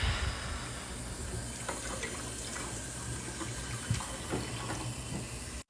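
Water running steadily from a tap, a continuous splashing rush with a few faint ticks in it, cut off abruptly near the end.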